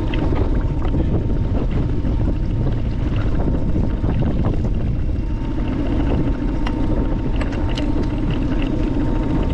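A boat's motor running steadily with a low rumble, a faint thin whine over it, and wind noise on the microphone.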